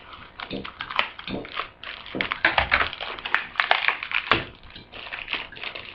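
Scissors snipping and plastic packaging crackling as toy parts are cut free and handled: a dense, irregular run of clicks and rustles.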